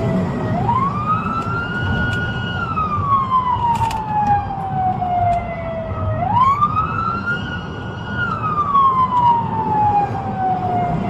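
Police car siren on a slow wail, heard from inside a Chevrolet patrol car's cabin. Its pitch rises over about a second, holds briefly, then falls slowly over several seconds, twice. Engine and road rumble run underneath.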